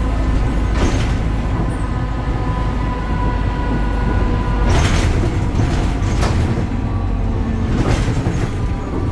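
BredaMenarini Avancity Plus city bus running with its Deutz Euro 5 diesel engine, heard from on board: a steady low engine drone with a steady high whine over it, and a few short rattling knocks from the bodywork.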